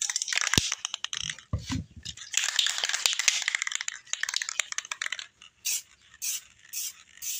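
Aerosol spray can being shaken, its rattle coming about twice a second over the last couple of seconds. Before it come a few knocks of things being handled and a hiss of about three seconds.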